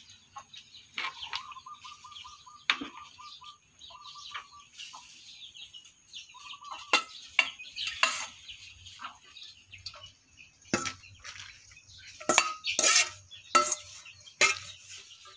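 Metal ladle knocking and scraping against a stainless steel bowl and an aluminium pot as leafy greens are scooped across, a series of sharp clinks that come thickest in the second half.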